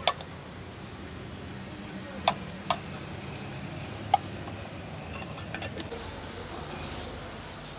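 Chopped onion and tomato masala sizzling on a flat iron dosa griddle, with a few sharp clinks of a steel spoon against a steel pot as spice masala is added. Near the end, lighter knocks as a steel masher starts crushing the vegetables on the griddle.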